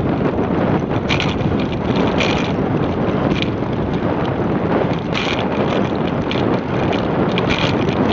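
Wind buffeting the microphone while riding a bicycle along a paved trail: a loud, steady rushing rumble, with short hissy flares every second or two.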